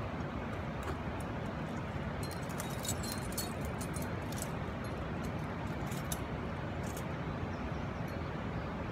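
Metal climbing gear, carabiners and quickdraws on a climber's harness, clinking and jingling in a cluster of sharp clicks between about two and seven seconds in, over a steady low rumble.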